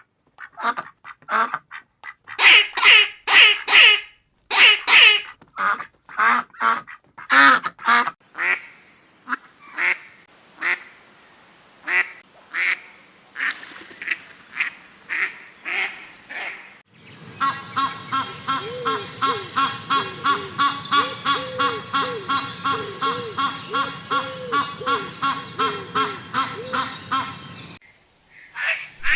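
Ducks quacking, several recordings cut together. The first half is a run of separate loud quacks. Then comes a steadier series of quacks, about two or three a second, over a background hiss, which stops abruptly near the end.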